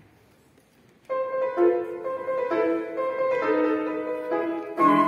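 Classical duo for flute and piano: the piano starts playing about a second in, and the flute comes in louder just before the end.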